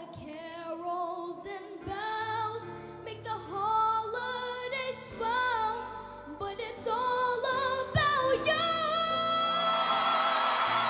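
A young girl singing a wordless, gospel-style melodic run with backing music, ending on one long held note about eight and a half seconds in. Near the end the audience starts clapping and cheering under the held note.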